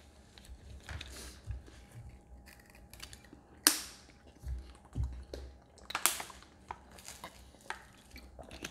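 Crackling and crunching of eating and drinking: a crisp fried peach mango pie being bitten and chewed, and a thin plastic water bottle being drunk from. Scattered sharp crackles, two louder ones about four and six seconds in.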